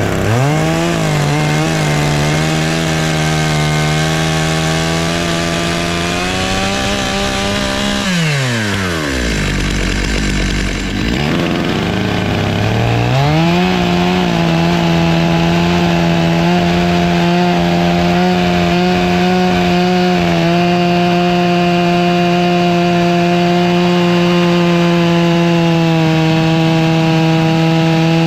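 Stihl MS 661 two-stroke chainsaw on a Logosol F2 Plus chainsaw mill, ripping through a black walnut log with a 20-inch bar and ripping chain. It goes up to full throttle at the start, drops to idle about 8 seconds in, then climbs back to full revs about 13 seconds in and holds there.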